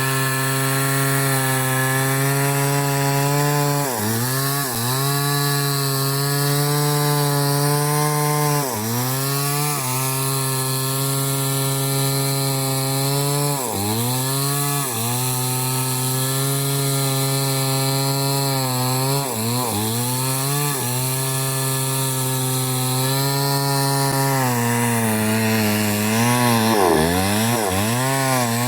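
Small two-stroke chainsaw running at high revs, its engine note dipping briefly and picking back up several times, most often in the last few seconds.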